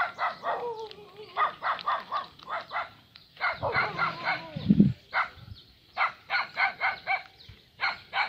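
A dog barking repeatedly in quick runs of short, sharp barks, with a couple of longer sliding calls mixed in.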